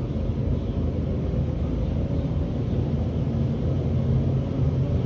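Steady low rumble with a faint mechanical hum, unchanging throughout.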